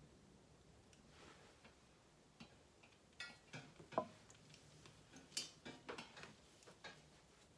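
Faint, irregular clicks and rustles of hair and a curling wand being handled, most of them in the middle of the stretch, with the sharpest click a little after four seconds.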